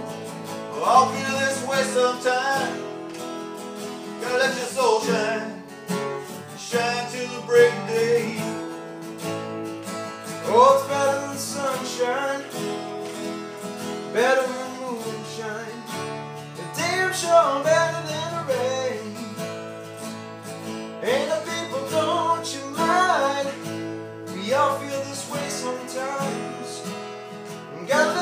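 Two acoustic guitars playing an instrumental break in a slow blues-rock song: chords strummed under a lead line whose notes are bent upward again and again.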